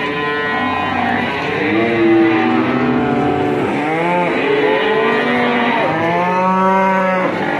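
Several cattle mooing in long, overlapping calls, one after another, with the longest call in the second half.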